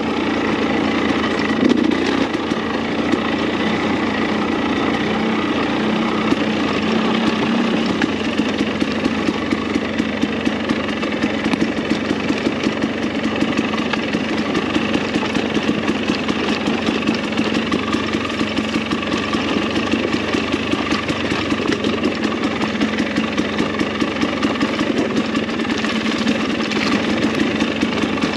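Dirt bike engine running at low revs, with a fast, even pulse that stands out from about eight seconds in.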